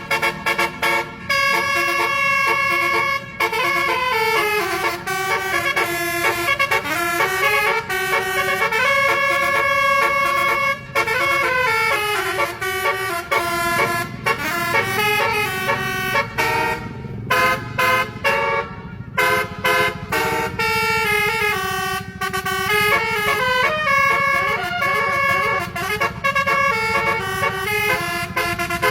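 Basuri musical air horn of a bus, the 'telolet' horn, playing a tune in a run of stepped horn notes with a few short breaks, over a low engine rumble.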